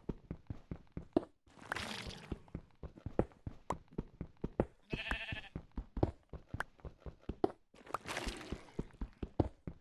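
A single short bleat from a sheep or goat about five seconds in. Around it are many irregular knocks and clicks, and two longer bursts of rushing noise, the first near the start and the second near the end.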